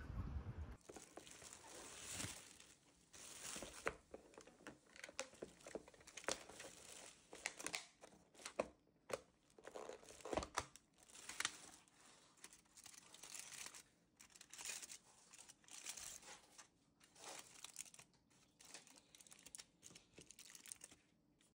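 Irregular crinkling and rustling of a plastic carrier bag, a cardboard takeout box and aluminium foil, handled and opened by hand.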